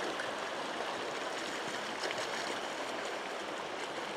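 Snowmelt river flowing over a rocky bed: a steady, even rush of water.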